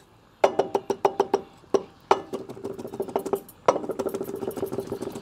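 Kitchen knife rapidly chopping fresh herbs (broad-leaf thyme and Suriname thyme) on a cutting board: a quick run of strokes starting about half a second in, getting faster and denser near the end.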